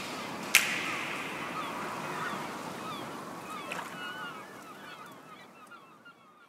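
Outro music fading out: a last sharp drum hit about half a second in, then a ringing tail with many short chirping glides that dies away near the end.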